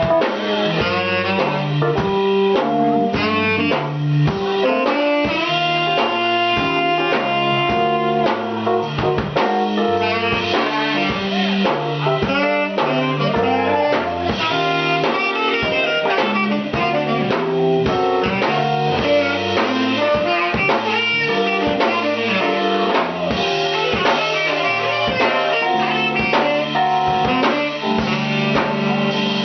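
Instrumental music with a steady beat and a bass line stepping from note to note.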